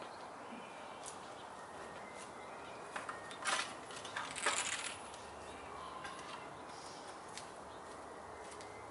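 Metal poles clanking and rattling as they are pulled from their stand, in two loud bursts about three and a half and four and a half seconds in. Light footsteps and scuffs on concrete around them.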